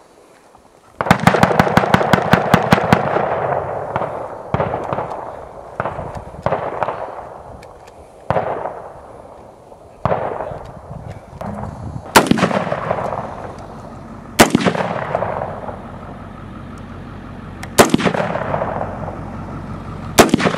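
Gunfire: a rapid string of about a dozen shots in two seconds, then single shots every one to three seconds, each trailing off in a long echo. The last shot, near the end, is from an AR-15-style rifle.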